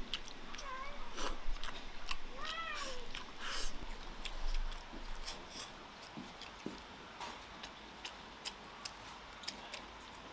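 A cat meowing twice, each a short call that rises and falls in pitch, the second louder, followed by a few light clicks.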